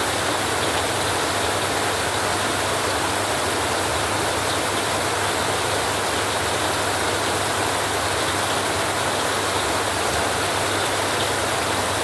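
Heavy rain falling steadily on a metal roof, a dense even hiss with a low steady rumble underneath.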